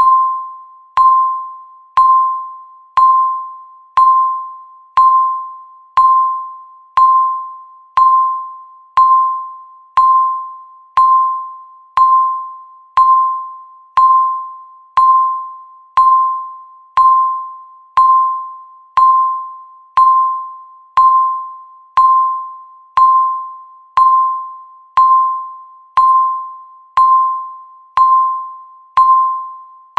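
Countdown timer beep sounding once every second: a single electronic tone that starts sharply and fades away before the next one, ticking off the seconds.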